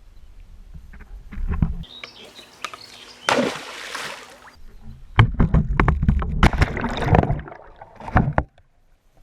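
A magnet-fishing magnet with a GoPro strapped to it goes into the water with a splash about three seconds in. A run of knocks and sloshing water follows and cuts off suddenly near the end.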